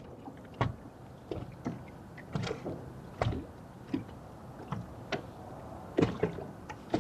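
Scattered light knocks and thumps on a fishing boat's deck, about one a second, over a low steady rumble of wind and water.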